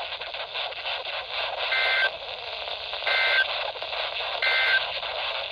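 Three short warbling bursts of Emergency Alert System (SAME) end-of-message data tones on a NOAA Weather Radio broadcast, about 1.3 seconds apart, marking the end of the warning message. They sound over steady radio hiss and static from weak long-distance reception.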